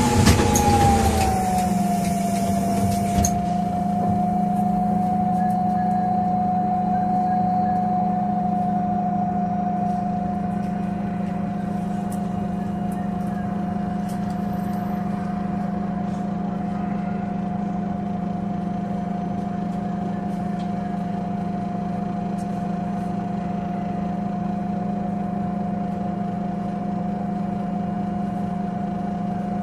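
Iveco Cursor 8 CNG engine of a Solaris Urbino 12 city bus idling, heard inside the passenger cabin as a steady low hum with a steady whine above it. The whine dips slightly in pitch in the first two seconds and then holds level. In the first three seconds a loud hiss of compressed air, typical of the bus's pneumatic system venting at a stop.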